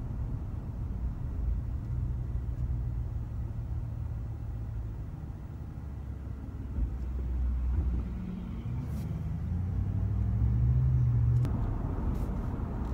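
Ram 1500 pickup truck's engine and road noise heard from inside the cab while driving, a steady low drone whose engine note rises in pitch about nine to eleven seconds in, then drops.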